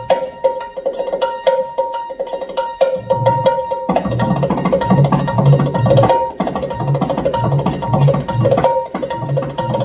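Dholki, a two-headed hand drum, played in a fast rhythm of sharp treble strokes, with deep bass strokes joining in about three seconds in.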